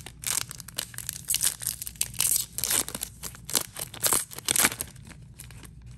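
Foil wrapper of a Topps 2021 Series 1 baseball card pack crinkling and tearing as it is ripped open by hand. A rapid, irregular crackle that thins out near the end.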